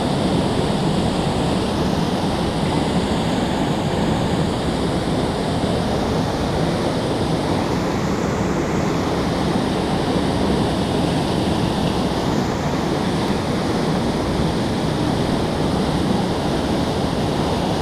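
Steady rush of water pouring through a concrete dam's spillway gates and churning white below them.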